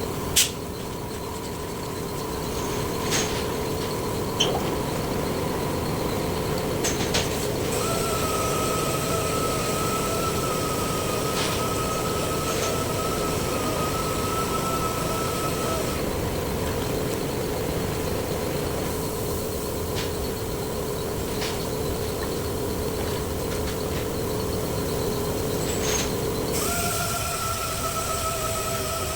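A power tool running steadily, with a whine that starts about a third of the way in, cuts out near the middle and comes back near the end. A few sharp clicks or taps are heard early on.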